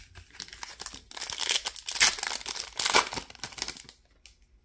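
A trading-card pack wrapper torn open and crinkled by hand, a dense run of crackling that is loudest in the middle and dies away shortly before the end.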